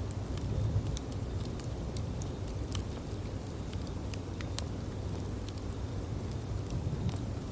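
Bonfire burning: a steady low rumble of the flames with irregular sharp crackles and pops, a few louder ones standing out.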